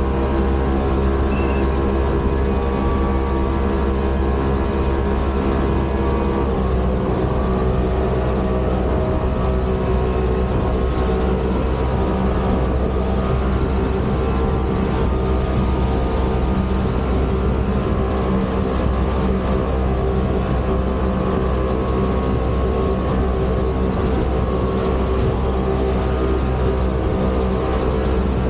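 Motorboat engine running steadily at speed under way, with water rushing along the hull; the engine note shifts about six seconds in.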